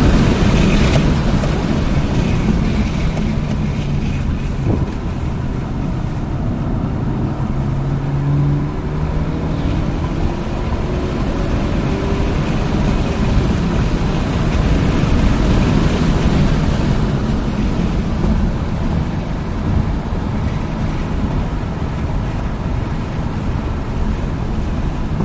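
Hyundai Elantra N's turbocharged four-cylinder engine under load at track speed, under heavy wind and road noise. The engine note climbs as it revs up from about three to nine seconds in, then drops and runs on steadily.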